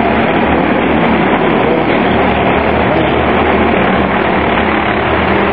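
Minicup race cars' engines running at racing speed around the oval, a loud steady din from the grandstand.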